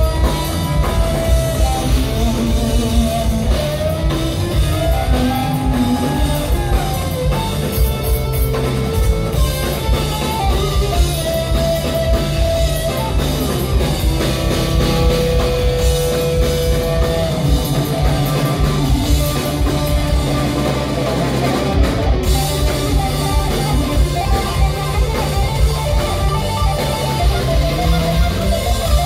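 Live rock power trio playing loudly: electric guitar, bass guitar and a drum kit.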